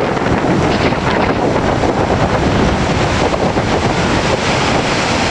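Windstorm: strong gusting wind buffeting the microphone in a loud, steady rush.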